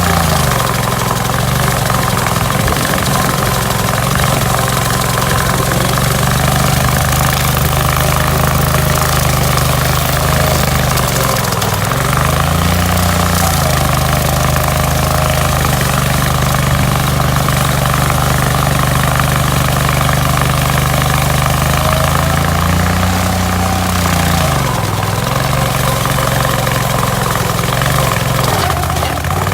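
Hydraulic stump grinder's engine running steadily under work, its note dipping and coming back up about four times, over a constant noisy hiss of grinding.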